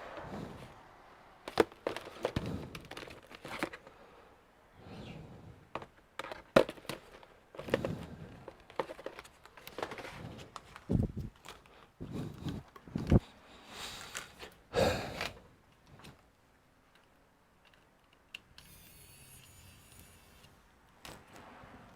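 Irregular clicks, taps and knocks of laptop parts being handled and fitted during disassembly, a few landing as duller thuds, with a quieter stretch near the end.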